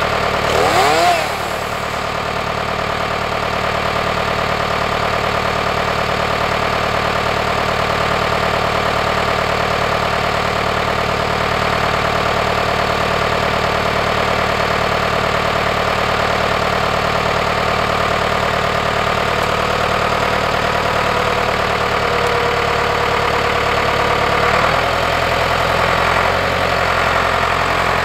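Ford 5600 tractor's three-cylinder diesel engine running steadily, with a brief falling-then-rising whine about a second in; about 25 seconds in the engine note changes as the tractor starts to move.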